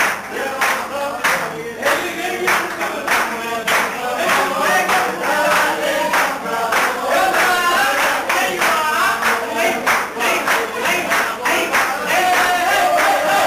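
A group of people singing together, with rhythmic hand-clapping at about two claps a second.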